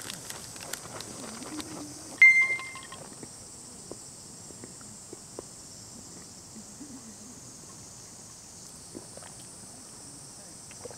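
Tableware and small objects clinking and knocking on a camp table, with one sharp ringing clink about two seconds in, over a steady high hiss.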